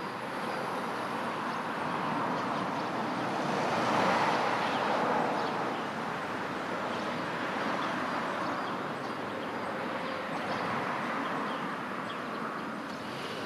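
Road traffic passing: a steady hiss of tyres and engines that swells as a vehicle goes by, once about four seconds in and again near the end.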